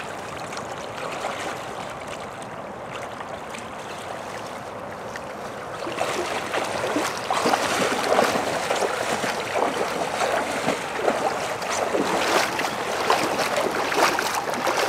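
Shallow creek water running with a steady hiss; from about six seconds in, louder irregular splashing and sloshing, as of someone wading quickly through the shallows.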